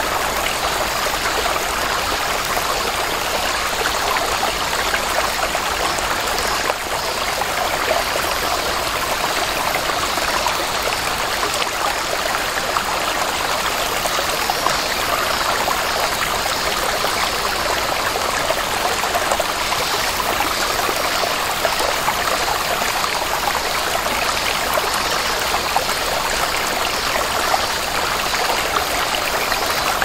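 A small, shallow stream running and trickling over rocks and pebbles: a steady babbling of rolling water. Recorded at close range with a ZOOM H6 through its XYH-6 X/Y microphone.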